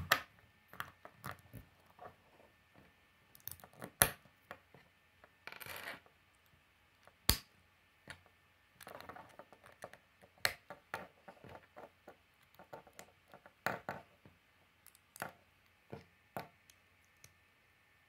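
Plastic Lego bricks being handled and pressed together: scattered small clicks and snaps, two sharper snaps about four and seven seconds in, and brief rustling of pieces in between.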